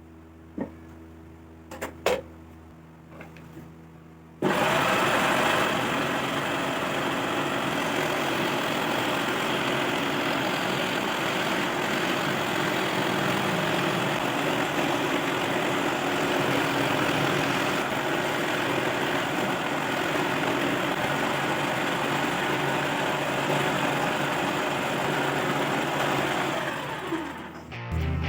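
A few handling clicks, then an electric jigsaw switched on about four seconds in. It runs steadily at full speed for over twenty seconds, then is switched off and winds down with a falling tone near the end.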